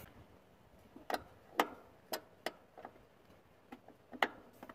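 A wrench working the hydraulic line fitting on a clutch master cylinder, giving a string of about eight sharp metal clicks at uneven spacing.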